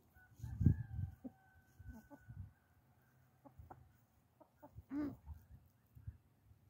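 Backyard hens clucking as they forage, with one long, steady drawn-out call over the first few seconds and a short sharper call about five seconds in. Low dull thumps sound underneath, loudest about a second in.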